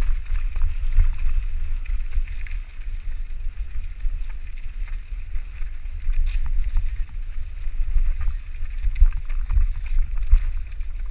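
Wind rumbling across the camera microphone as a mountain bike is ridden, with a steady hiss and many scattered clicks and rattles from the bike.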